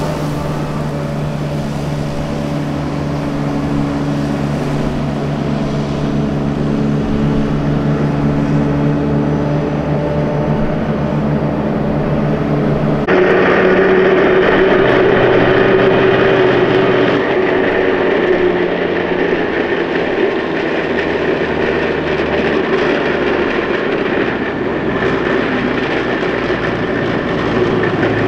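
Armoured vehicles driving past. First a Piranha 5 eight-wheeled armoured personnel carrier's diesel engine drones steadily close by. About halfway the sound changes abruptly to a CV90 tracked infantry fighting vehicle approaching, with a higher whine over its engine.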